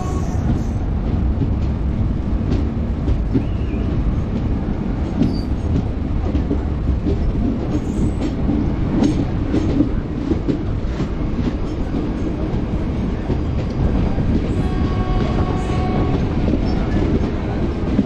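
Passenger express train running past with a steady rumble and wheels clattering over the rail joints.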